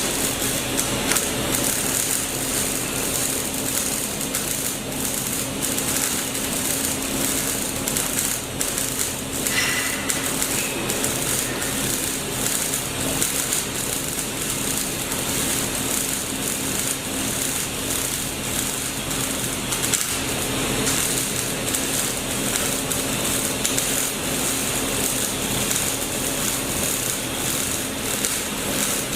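Arc welding on a steel pipe: a steady crackling hiss of the arc with dense fine clicks, over a constant low hum.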